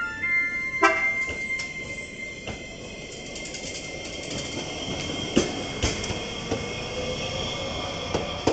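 Iyotetsu 5000-series low-floor tram's electronic horn, its stepped tones ending about a second in, as the tram pulls away. Then its traction motor whines, rising slowly in pitch as it accelerates, over a steady high tone and a few sharp wheel-on-rail clicks.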